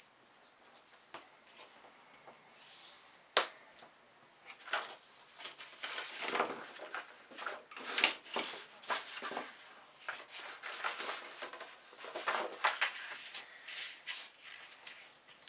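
White cardstock rustling and swishing as it is folded along its score lines and the creases are rubbed flat with a bone folder. A single sharp click about three seconds in, before the rustling starts.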